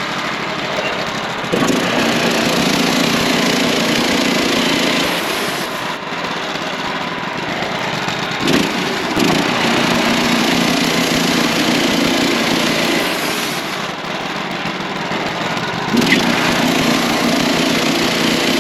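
Wood-Mizer portable band sawmill running, its engine and band blade sawing through a pine log. The sound swells three times for a few seconds and eases in between.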